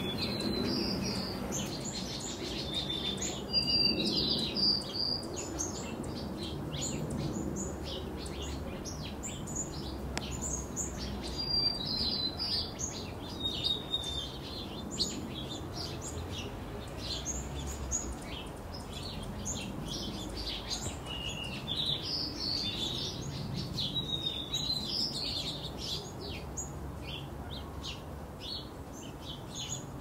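Small songbirds chirping and singing: many short, high notes and brief twittering phrases on and off throughout, over a faint low background rumble.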